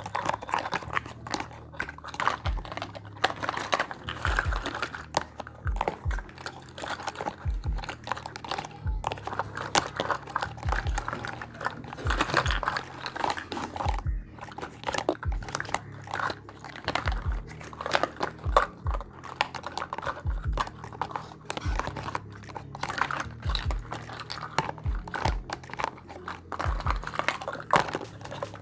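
Irregular small taps and clicks of miniature toy kitchen pieces being handled and set down, over soft background music.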